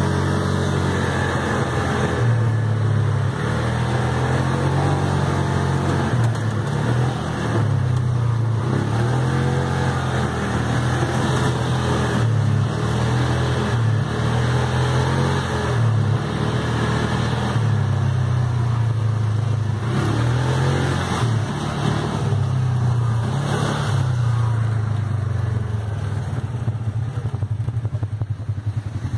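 ATV engine running on the move over a dirt trail, heard from on board, its pitch rising and falling every couple of seconds as the throttle opens and eases.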